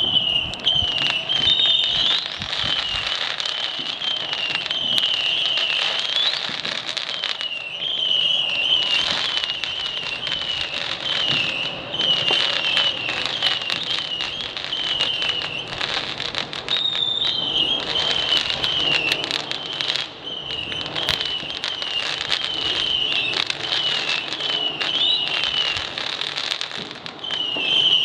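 Fireworks crackling densely and continuously, beginning abruptly, with a high warbling whistle running through the crackle.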